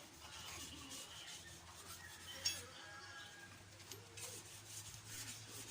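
Faint rubbing and scraping of hand tools working a clamp off a Bajaj CT100 motorcycle, with one sharp click about two and a half seconds in.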